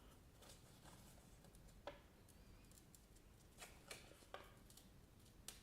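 Near silence, broken by a few faint, short clicks and rustles from handling the freshly bound paper and the stapler.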